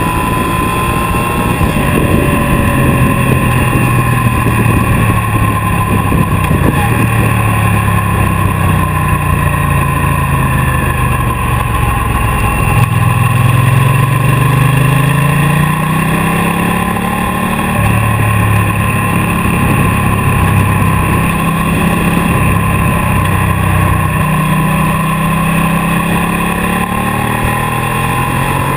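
Ducati motorcycle engine running under way, heard from a camera mounted on the bike, over a steady rush of wind and road noise. About halfway through, the engine note rises as the bike accelerates, then holds steady.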